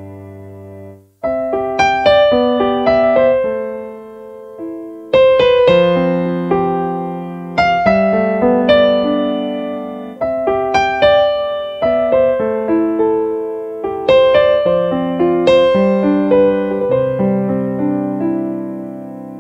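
Background piano music: a gentle melody of struck notes that ring and fade, phrase after phrase, with a brief break about a second in.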